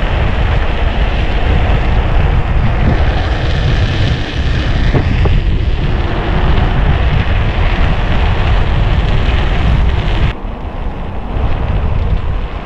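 Wind rushing and buffeting over the microphone of a rider on a moving folding bicycle. It eases a little about ten seconds in.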